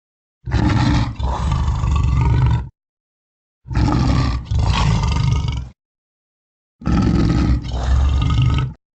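Three separate cartoon creature roars of about two seconds each, each broken by a brief catch partway through, cut apart by dead silence.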